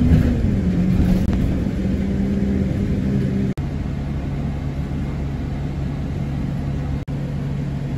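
Engine hum with a steady low drone, its pitch shifting slightly near the start. After an edit about three and a half seconds in it becomes a bus engine running steadily, heard from inside the passenger cabin, with a short break from a second cut near the end.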